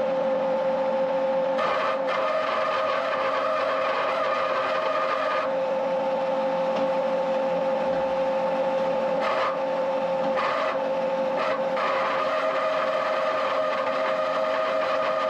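Farm machinery running steadily with a constant whine, with a rushing noise on top that cuts out and comes back several times.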